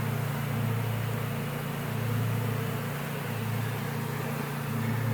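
Steady low drone of a distant lawnmower engine, mixed with the hum of a mass of honeybees flying around a hive.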